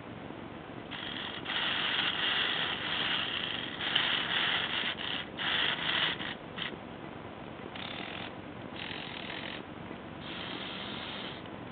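Small electric motor and plastic gears of a motorized Lego tank whirring in short runs, starting and stopping about seven times as the turret turns.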